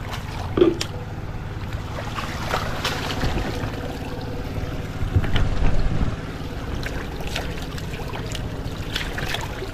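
Shallow channel of running water flowing over stone, with hands and feet splashing in it as they are washed. A sharp knock comes just under a second in, and the splashing is louder for about a second around five seconds in.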